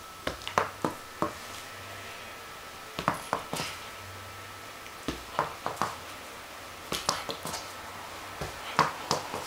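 Short clusters of light clicks and taps, about every two seconds.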